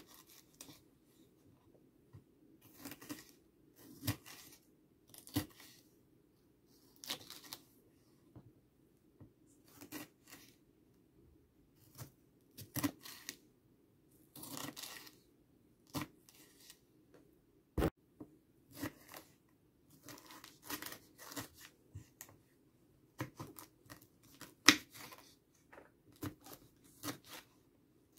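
Kitchen knife slicing red bell pepper on a bamboo cutting board: crisp cuts through the flesh and taps of the blade on the wood, irregular, about one a second.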